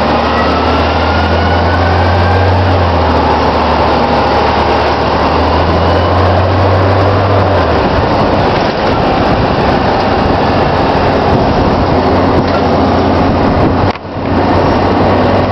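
Iveco 480 city bus under way, heard from inside the passenger cabin: engine and drivetrain running, with a rising whine over the first couple of seconds as it gathers speed. The low engine hum drops away about eight seconds in, and the sound briefly dips near the end.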